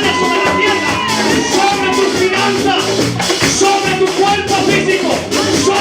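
Live church worship music: voices singing over a steady rhythmic beat, in a Latin style.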